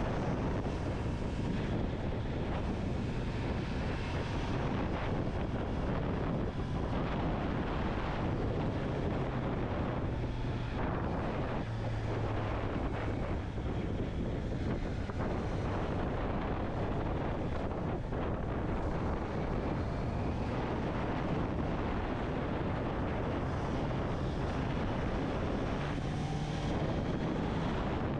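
Honda CB650R's inline-four engine running while the bike is ridden, its note shifting in pitch a few times, under heavy wind noise on the microphone.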